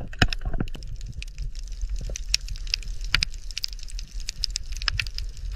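Underwater coral reef ambience: a dense, irregular crackle of sharp clicks and pops over a steady low rumble, with one louder click near the start.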